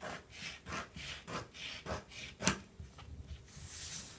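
Scissors cutting a sheet of self-adhesive contact film off the roll: a string of short snips and rustles of the plastic sheet, then a longer hissing cut near the end.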